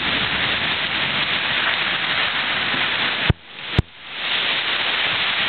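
Heavy thunderstorm rain pouring down as a steady hiss. About three seconds in come two sharp clicks half a second apart. The rain sound drops out between them and swells back after.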